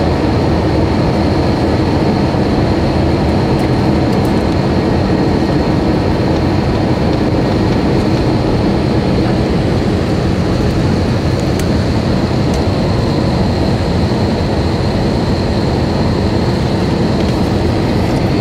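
Steady cabin noise of a jet airliner in flight, the engines and rushing air making a constant even noise with a thin steady high whine over it.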